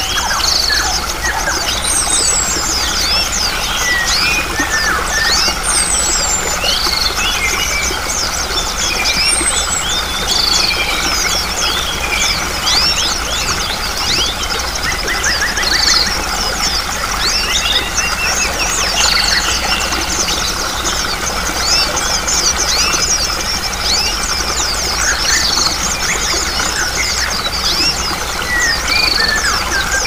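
A dense chorus of small songbirds chirping and trilling continuously, with a high falling whistle repeated every few seconds. It sits over a steady rush of running water.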